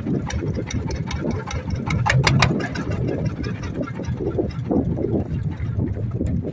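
Small wooden boat's engine running steadily while the boat is under way. A brief cluster of sharp knocks comes about two seconds in.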